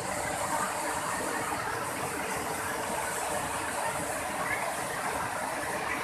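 Steady rushing of a waterfall, white water cascading over rock ledges.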